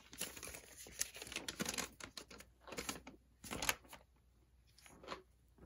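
Paper instruction sheet being picked up and unfolded: a run of irregular crackles and crisp clicks, thinning out after about four seconds.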